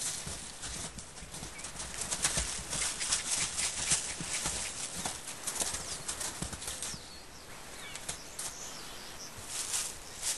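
A colt's hooves, with a person's footsteps, crunching in snow as the horse moves around; the crunching thins out about seven seconds in and picks up again near the end.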